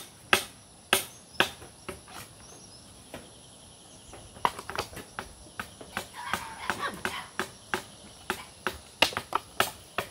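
Repeated sharp knocks of a hand tool striking coconut shells, about two a second at first, pausing for a couple of seconds, then resuming irregularly. A steady high insect drone runs underneath.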